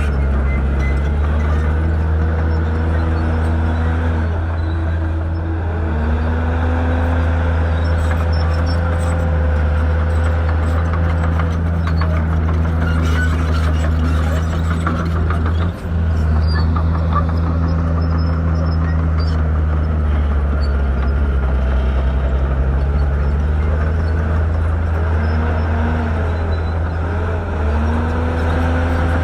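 Shantui bulldozer's diesel engine running hard as it works, its pitch rising and falling as the revs change several times, with a brief dip in level about sixteen seconds in.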